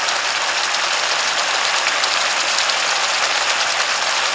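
Chili sambal sauce bubbling and sizzling in a wok as it cooks down, a dense, steady crackle.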